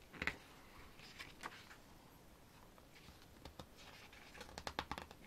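Pages of a paper photobook being handled and turned: faint rustles and small ticks of paper, with a quick cluster of them near the end.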